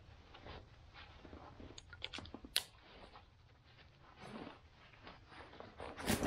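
Faint rustling and scraping of a Helikon-Tex Matilda backpack's nylon webbing straps as the hip belt is buckled and the shoulder straps are pulled tight, with a sharp click about two and a half seconds in and a louder rustle near the end.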